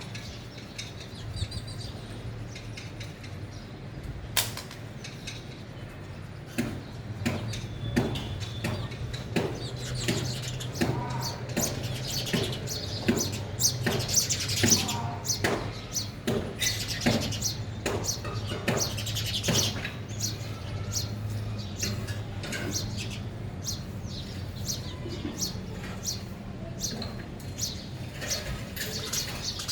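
House sparrows chirping, many short chirps in quick succession, busiest in the middle, over a low steady hum.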